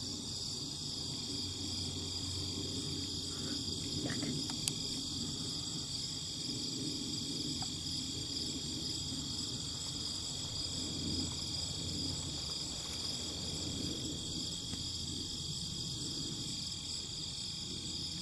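Steady, high-pitched chorus of insects such as crickets. There is one brief click about five seconds in.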